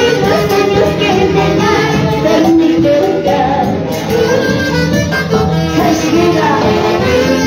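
A woman singing into a microphone with a live orquesta of saxophones, timbales and drum kit playing behind her.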